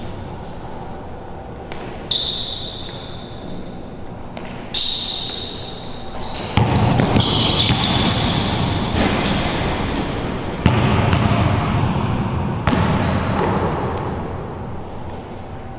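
Basketball dribbled on a hard indoor court, with sharp impacts and the high squeaks of sneakers on the floor during one-on-one play, echoing in a small enclosed court. The play is louder and busier in the middle, around a drive and shot at the rim.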